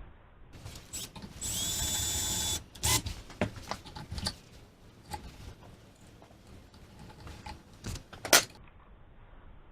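Power drill spinning up and running steadily for about a second, drilling out a bolt hole, followed by scattered clicks and knocks of handling, with one sharp click near the end.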